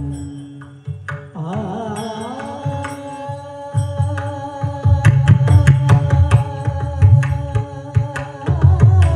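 Marathi abhang devotional singing: a voice slides into a long held note, accompanied by a pakhawaj barrel drum. The drum's deep strokes drop away for a couple of seconds and then come back strongly about four seconds in.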